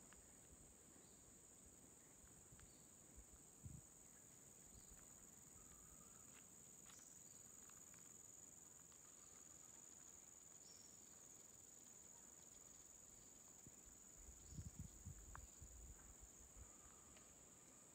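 Faint, steady high-pitched drone of insects in roadside tropical vegetation, with a few short chirps scattered through it. A few soft low thumps come near the end.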